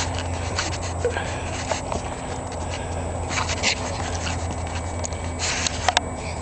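An animal caught in a cable restraint, rustling and moving about, with two sharp clicks about six seconds in.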